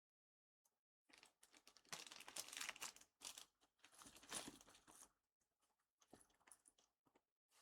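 Small plastic parts bag being torn open and crinkled: crackling rustles for about four seconds, then a few lighter rustles.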